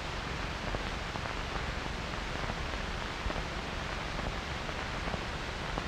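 Steady hiss of an old film soundtrack, with a few faint clicks.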